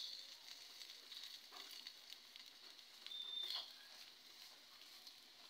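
Eggplant and rice-flour pancake frying in oil in a black pan, a faint, steady sizzle. A metal spatula scrapes under it a couple of times, once with a brief squeak about three seconds in.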